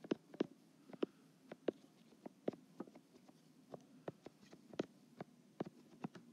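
Handwriting on an iPad's glass touchscreen: faint, sharp taps and ticks at uneven spacing, about three a second, as each stroke of an equation is written.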